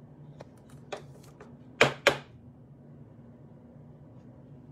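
Trading cards being handled by hand: a few light ticks, then two sharp clicks in quick succession about two seconds in.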